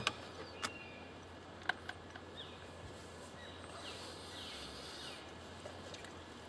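Quiet pond-side outdoor ambience with birds calling faintly in short descending chirps. A few sharp clicks come in the first two seconds.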